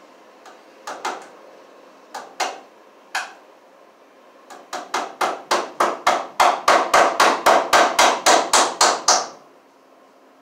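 Hammer driving cable staples into wooden framing to hold electrical cable. A few light, scattered taps, then a fast, even run of about twenty strikes, about four a second, growing louder before stopping near the end.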